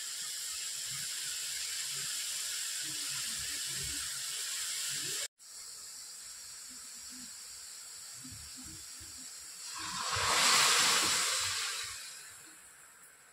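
Food sizzling in a hot cooking pan: a steady frying hiss that breaks off abruptly about five seconds in, then a quieter sizzle, and near the end a loud burst of sizzling that swells quickly and dies away over a couple of seconds.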